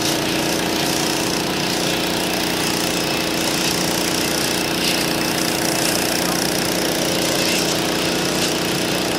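An engine running steadily: a constant mechanical drone that holds at one pitch throughout, without revving.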